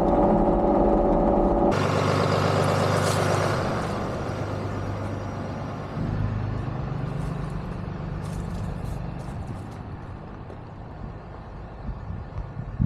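Diesel engines of compact earthmoving machines running steadily. The engine sound changes abruptly twice, then fades lower, with a few light knocks near the end.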